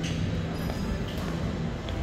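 Shopping-mall food court ambience: faint background music over a low murmur of the hall.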